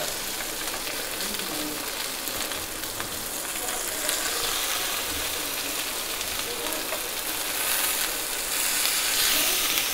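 Chicken cutlet patties sizzling in butter on a ridged grill pan as they are turned over with tongs. The sizzle swells a little about four seconds in and again near the end.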